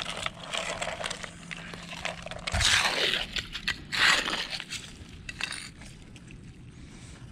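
Hand trowel digging into beach mud packed with mussel and barnacle shells, crunching and scraping, with two louder strokes about two and a half and four seconds in. Small shell clicks run between the strokes.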